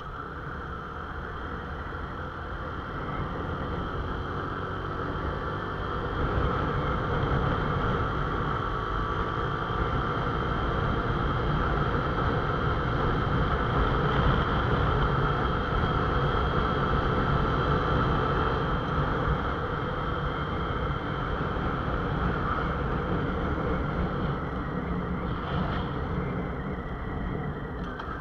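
Motorcycle engine running under way, mixed with wind rush on the microphone. It builds over the first several seconds as the bike speeds up, holds through the middle, and eases off near the end.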